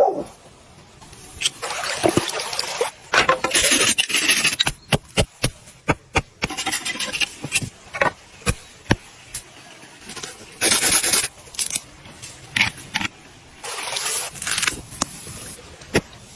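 Scraping and rubbing in bursts of about a second, broken by many sharp knocks and clicks: handling and preparing food or gear for camp cooking.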